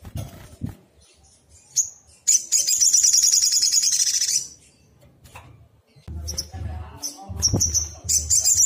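Sunbird calling: short, high chip notes and a rapid, high chattering trill about two seconds long, with another trill starting near the end.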